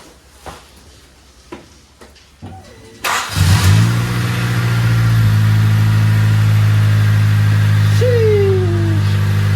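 1994 Honda Civic Si's 1.6-litre four-cylinder engine starting about three seconds in after faint clicks, briefly revving up, then settling into a steady idle: its first start after sitting for years, now that the fuel pump has its sock back on. A short falling whine sounds near the end.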